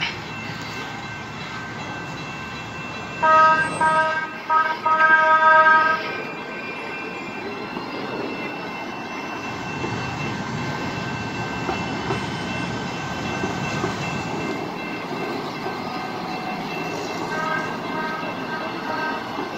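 San Diego MTS light-rail trolley sounding its horn in several blasts, the last about a second long, starting about three seconds in, then rumbling steadily through the grade crossing. Fainter horn toots come again near the end as more trolley cars pass.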